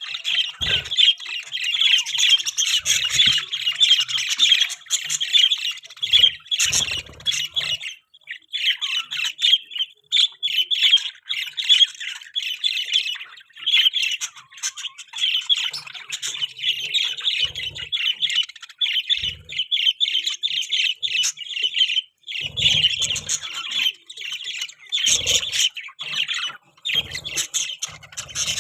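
Several budgerigars chattering and chirping, a dense run of quick high calls with short squawks and a few brief pauses.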